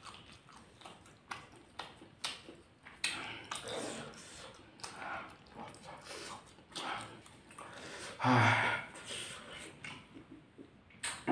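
Close-miked eating sounds of spicy fried rice with raw chillies eaten by hand: wet chewing, lip smacks and mouth clicks. A short, loud vocal grunt comes about eight seconds in.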